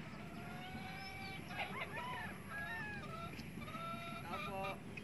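Birds calling at a distance: a string of pitched, whistled calls that glide and break off, some with short rapid notes, over a faint outdoor background.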